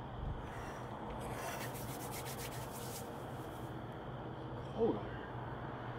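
Quiet city ambience: a steady low hum under an even hiss, with one short rising sound just before the end.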